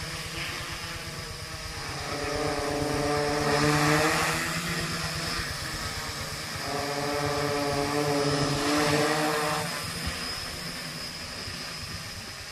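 Homemade F450 quadcopter's electric motors and propellers buzzing in flight. The buzz swells louder twice, then fades off near the end.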